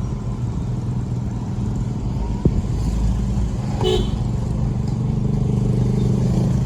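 Vehicle engine running steadily while driving in traffic, with a short horn beep about four seconds in.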